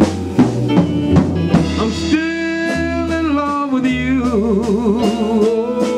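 Slow blues ballad music between sung lines: a bass line and drum beats under held chords, with wavering melody notes toward the end.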